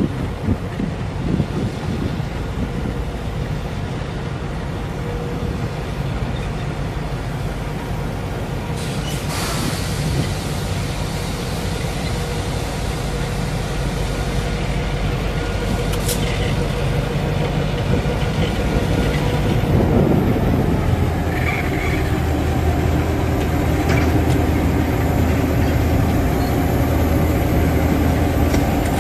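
Class 35-800 (ex-Queensland 2170 class) EMD diesel locomotives running as they approach and pass, their engine sound growing louder as the lead unit comes close. A short hiss comes about nine seconds in.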